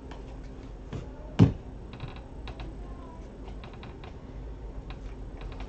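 Light, irregular clicks and ticks of a stack of glossy trading cards being flipped and slid against one another by hand, with one louder knock about a second and a half in.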